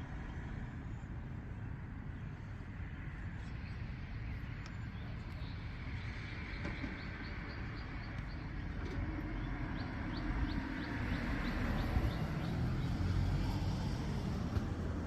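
A bird's rapid trill, two runs of quick repeated chirps about a second apart, over a steady low rumble of outdoor background noise.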